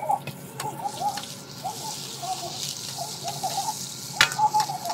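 Green peppers stir-frying in hot oil in an iron wok: a hissing sizzle that thickens after about a second and a half, with the metal ladle scraping and clicking against the wok and one sharp knock about four seconds in.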